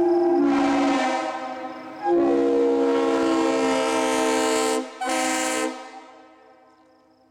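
Multi-chime locomotive air horn sounding a chord in three blasts: the first trails off, a long blast starts about two seconds in, and a short one follows after a brief break. The horn then dies away as the train passes.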